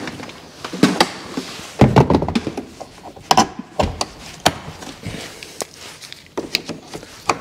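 Irregular clunks and thuds of someone climbing the steps into a John Deere tractor's cab and handling the cab door, with a few heavier thumps about two and four seconds in.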